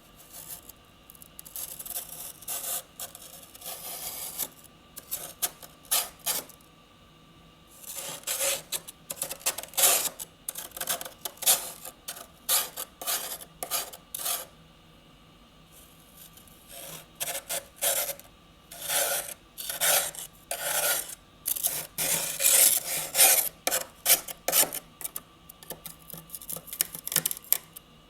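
Freezer frost being scraped off in many short rasping strokes. The strokes come in three runs, with brief pauses between them.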